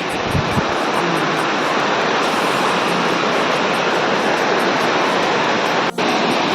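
Waterfall pouring: a loud, steady rush of falling water, briefly cut off about six seconds in.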